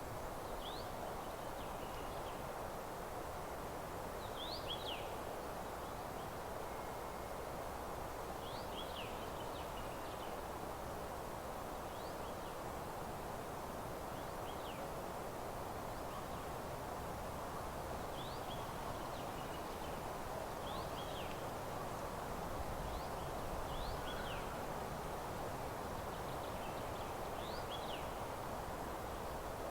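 Small birds giving short, high chirps, scattered and irregular, over a steady background rustle.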